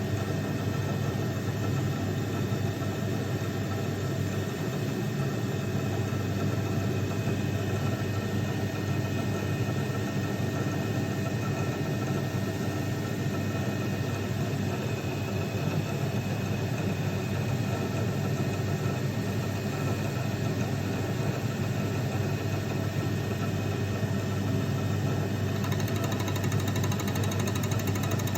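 Milling machine running steadily while milling a snap ring groove for a crankshaft roller bearing, an even machine hum with a steady mix of fixed tones.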